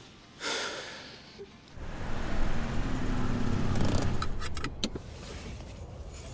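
A motor vehicle going by: a rumble that swells and fades over about three seconds, followed by a few sharp clicks.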